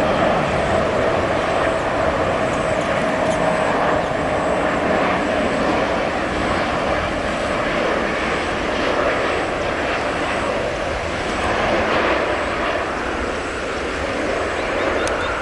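Jet noise from the Engine Alliance GP7200 turbofans of an Airbus A380-861 landing: a steady, loud rush with a faint whine that sinks slightly in pitch over the first few seconds.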